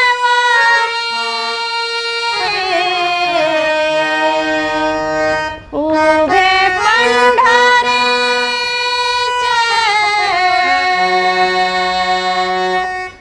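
Devotional Marathi abhang: a singer holds long, ornamented notes that slide and waver in pitch, over a steady held accompaniment, with a short break about six seconds in.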